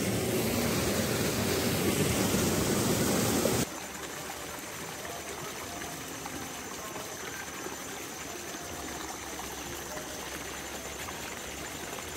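Small stream rushing over rocks at a little cascade, a steady rush of water that cuts off suddenly about four seconds in, leaving a much quieter, even background with a faint steady high tone.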